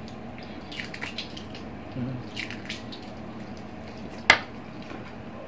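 Eating sounds from balut (boiled duck eggs): small crackles of eggshell being peeled and wet squishing. One sharp click a little past four seconds stands out.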